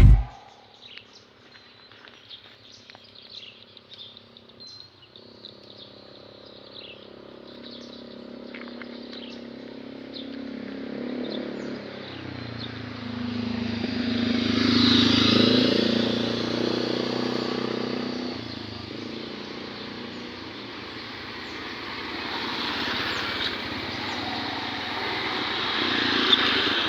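Motor vehicle engine running, growing louder to a peak about halfway through, fading, then swelling again near the end. Short bird chirps can be heard in the first few seconds.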